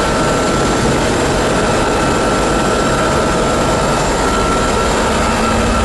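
Cabin noise inside a running Bell CH-146 Griffon helicopter: a loud, steady drone from its twin turboshaft engines and rotor, with a high whine held over it.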